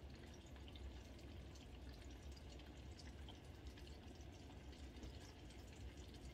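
Faint, continuous crackling and popping of hot oil from fish being deep-fried.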